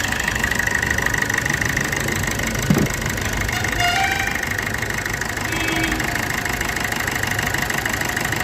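Maruti Suzuki Swift VDI's 1.3-litre four-cylinder diesel engine idling steadily, running again on a freshly replaced timing chain after the worn original had stopped it. A single short knock sounds about three seconds in.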